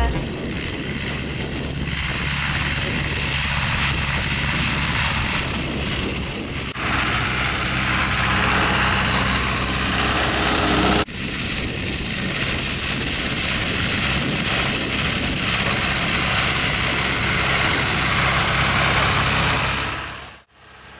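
Farm tractor's diesel engine running steadily while it pulls a seed drill, under a broad rushing noise. The sound drops out sharply twice and fades away near the end.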